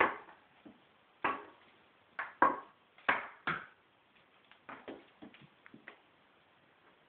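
A hand tapping on a panelled door: a dozen or so irregular sharp taps. The louder ones come in the first four seconds, then fainter ticks follow.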